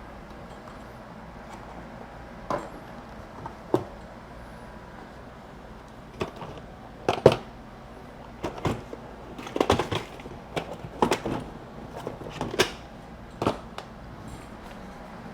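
Irregular knocks and clatters of objects being moved and set down while someone rummages to fetch a bottle of CA glue, about a dozen sharp clunks over several seconds.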